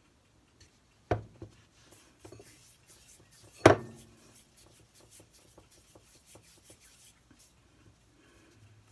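Hands kneading and squeezing a soft dough of baby powder and hand lotion, with faint rubbing. There are two sharp knocks on the counter, a second in and a louder one nearly four seconds in; the louder one fits the plastic baby powder bottle being set down.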